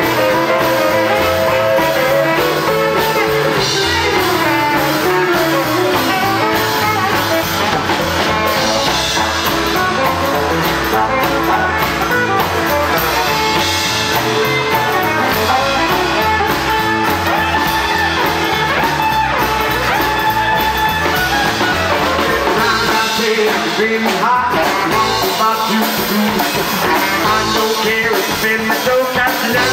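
Live rockabilly band playing, with upright bass, drums and guitars.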